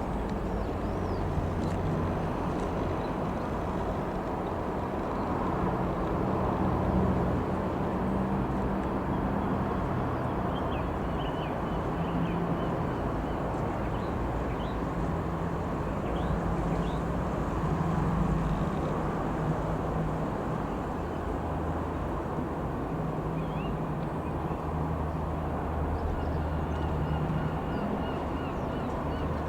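Steady low engine drone outdoors, its pitch wavering slowly, with small birds chirping now and then over it.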